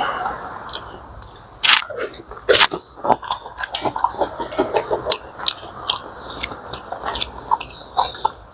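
A person eating seafood boil close to the microphone: chewing and crunching, with many small irregular clicks and crackles.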